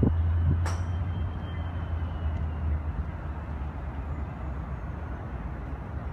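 Low, steady rumble of a distant engine, easing off about three seconds in, with one sharp click near the start.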